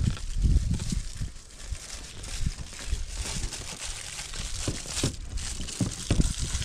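Aluminium foil crinkling and rustling as it is handled, with irregular low bumps.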